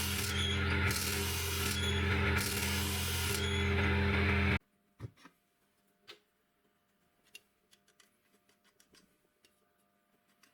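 Homemade drill-bit sharpener driven by an old washing-machine motor, running with a steady hum while a drill bit is ground on it, the grinding hiss swelling and fading about every second and a half. The sound stops suddenly about four and a half seconds in, leaving only faint clicks and taps.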